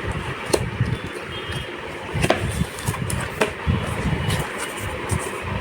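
Graphics card box being unpacked by hand: packaging rustling with three sharp clicks, about half a second, two seconds and three and a half seconds in, over a steady low rumble.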